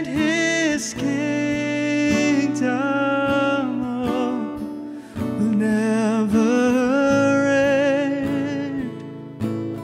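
A man singing a slow worship song to his own strummed acoustic guitar, with long held notes with vibrato, on the line 'and his kingdom will never end'.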